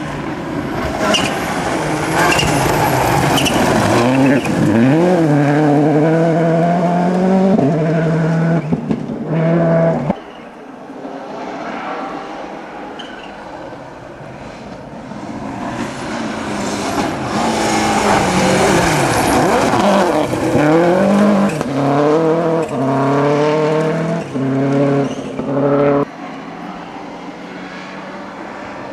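Two rally cars passing one after the other, each engine revving hard and climbing through the gears in stepped rises of pitch. Each one's sound cuts off suddenly, the first about ten seconds in and the second near the end.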